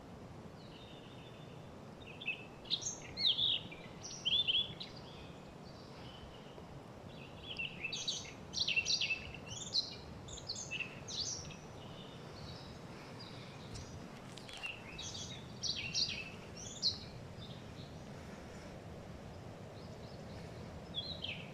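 Songbirds singing in bouts of quick, high chirping phrases, three main bouts with pauses between, over a steady low background hiss.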